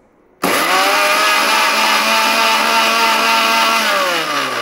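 Electric mixer grinder with a stainless steel jar blending yogurt and chocolate. The motor starts suddenly about half a second in and runs steadily, then is switched off near the end, its pitch falling as it winds down.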